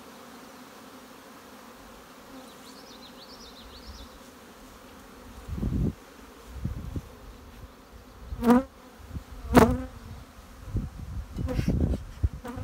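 Honeybees buzzing around open hives, a steady hum. A bird sings briefly about two and a half seconds in. From about halfway, bees fly close past the microphone with louder buzzes, the loudest two about eight and a half and nine and a half seconds in, along with low rumbles on the microphone.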